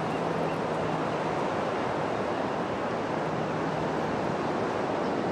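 Steady wash of ocean surf on a beach, mixed with wind noise on the microphone.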